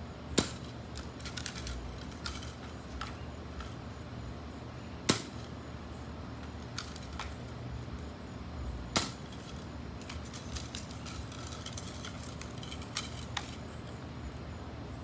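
Air rifle fired three times at a snake in the water, sharp cracks about five and four seconds apart, with lighter clicks and knocks between the shots.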